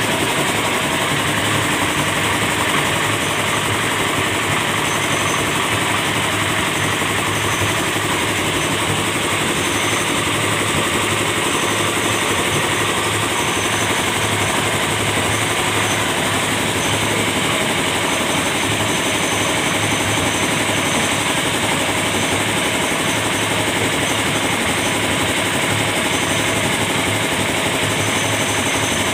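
Small stationary engine running steadily with a rough, even chug.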